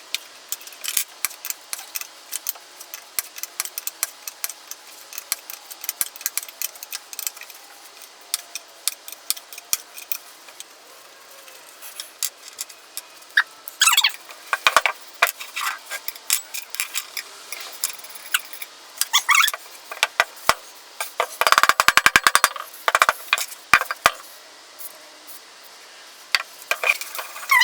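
Metal clinks, taps and rattles of hand tools and loose parts as an old cast-iron post drill is taken apart, with a couple of short squeaks. Near the end comes a brief burst of rapid, even clicking.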